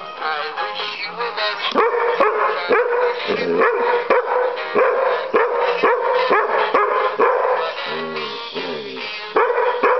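Dog barking repeatedly at a singing Christmas decoration, about two sharp barks a second from about two seconds in, over the decoration's song. Near the end the barking pauses briefly before starting again.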